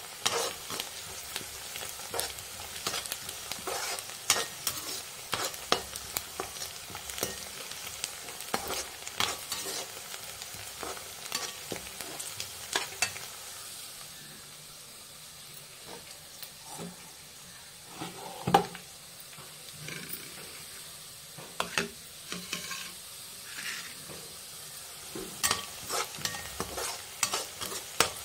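Chopped onions frying in hot oil in a kadhai, a steady sizzle, being browned lightly. A metal slotted spoon scrapes and clicks against the pan as they are stirred. The sizzle is quieter for several seconds past the middle.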